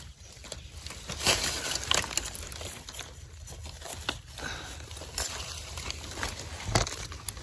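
Dry grass stems and dead leaves crackling and rustling close up as a hand pushes through the leaf litter, with irregular sharper snaps.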